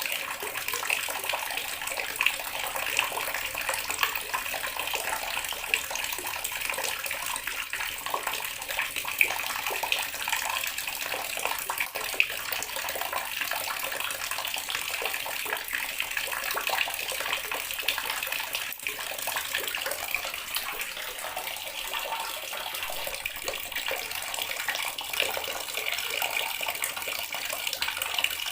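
Tap water running in a steady stream and splashing onto a hard surface, a constant hiss.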